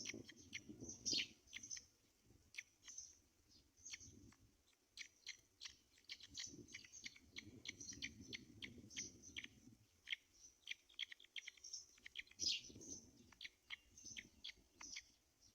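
Many short, high-pitched chirps and squeaks, several a second and irregular, from small animals in a nest, over soft rustling and scratching of nest material.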